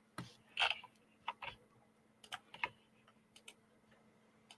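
About a dozen short, irregular computer clicks from a mouse and keyboard, a few at a time with short gaps, the loudest in the first second and a half. A faint steady hum lies underneath.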